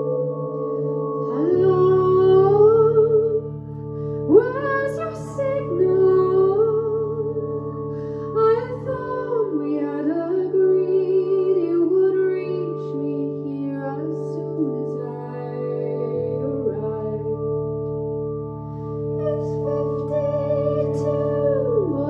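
A woman singing long notes with vibrato over held keyboard chords, her voice coming in about a second and a half in and carrying on in phrases.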